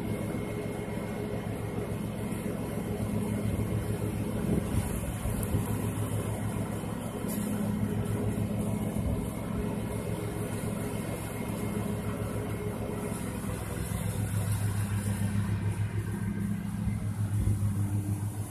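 Riding lawn mower engine running steadily while mowing.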